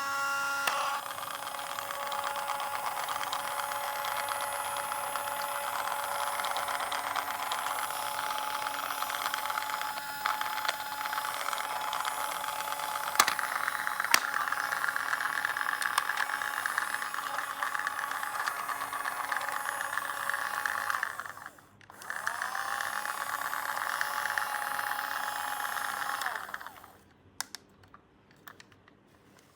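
A small motor running steadily with a whirring hum. It cuts out briefly about two-thirds of the way through, spins back up with a rising whine, then stops, followed by a few light clicks.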